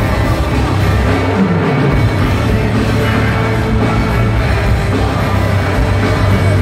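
Live rock band playing loud amplified music, heard from within the crowd.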